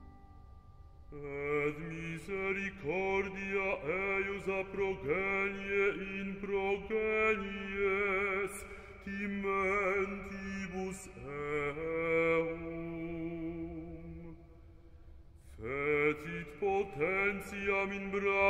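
A chant sung on long, held notes with vibrato. It begins about a second in, dies down for a moment near the end, then starts again.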